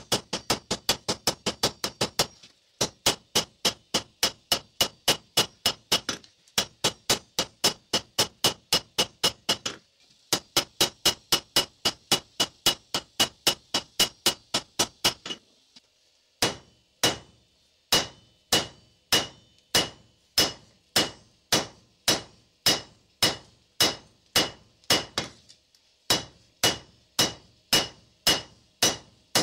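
Hand hammer striking red-hot steel on an anvil, forging a knife blade. Quick runs of blows, about five a second, are broken by short pauses, then slow to about two blows a second in the second half, each blow ringing high off the anvil.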